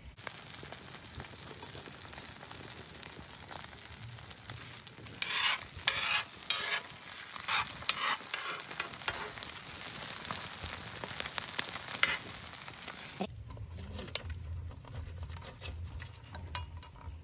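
Fish pieces shallow-frying in oil on a wide flat iron pan, a steady sizzle, with a metal spatula scraping and knocking on the pan as the fish is turned, loudest in the middle. The sizzle cuts off about thirteen seconds in.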